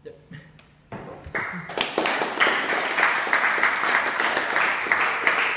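Audience applauding: a short quiet, then clapping starts about a second in and quickly builds to a steady, dense applause.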